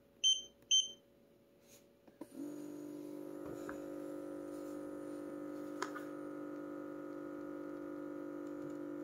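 Two short high beeps from the Lunix LX3 hand massager's touch panel. About two seconds in, its small air pump starts and runs with a steady hum, inflating the compression airbags that squeeze the hand and wrist.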